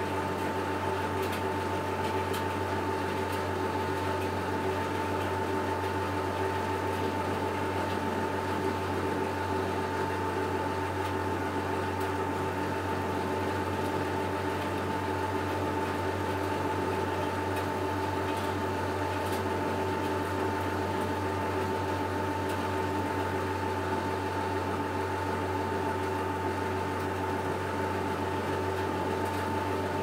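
1964 Miele Automatic 416 front-loading washing machine running, its drum turning without a pause. The motor gives a steady low hum with a high whine held on one note.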